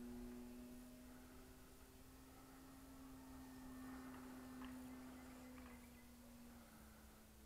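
Faint, distant hum of a radio-controlled model Pietenpol's motor and propeller in flight, a steady single pitch that dips slightly about two-thirds of the way through.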